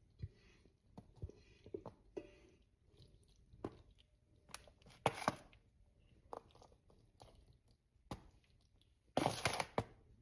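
Cooked noodles being portioned by hand into pans: soft squishy handling with scattered clicks and knocks, the loudest cluster near the end.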